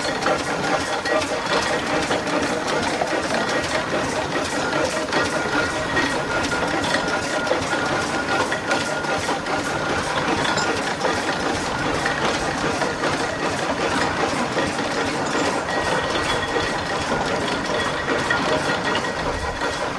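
Fowell steam traction engine running under its own steam and moving off slowly: a steady, busy mechanical clatter that keeps an even level throughout.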